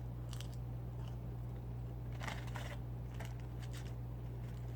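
Quiet eating sounds: a few short crunches and crackles of fried food being bitten and chewed close to the microphone, over a steady low electrical hum.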